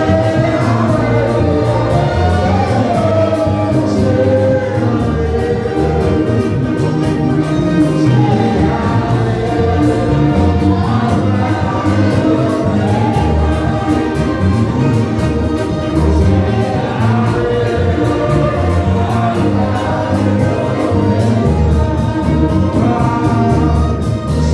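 Live congregational gospel worship: a worship team singing into microphones, with the congregation joining in, over amplified accompaniment with a heavy bass. The singing is steady and unbroken.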